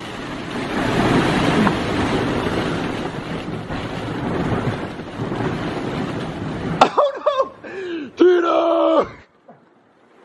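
Masses of hollow plastic ball-pit balls rustling and clattering as a person plunges and digs through the pit. The noise cuts off suddenly about seven seconds in, followed by a man's voice for about two seconds.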